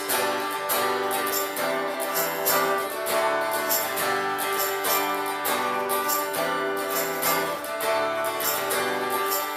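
Instrumental interlude of a worship song: acoustic guitar strumming chords in a steady rhythm, with no singing.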